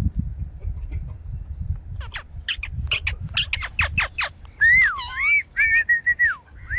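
Indian ringneck parakeet calling: a quick run of about eight short, sharp squawks, then several longer, louder calls that bend up and down in pitch.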